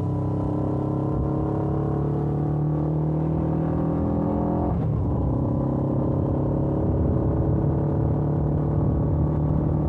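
Stock-exhaust Suzuki GS500F's air-cooled parallel-twin engine under way, pitch slowly rising as it pulls in gear. About halfway through the sound breaks sharply, as in a gear change, then the engine pulls on steadily.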